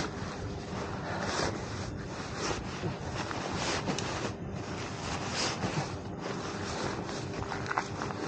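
Wind buffeting a helmet-mounted camera microphone, over the rustle of nylon fabric being gathered up and stuffed by hand, in short uneven swells.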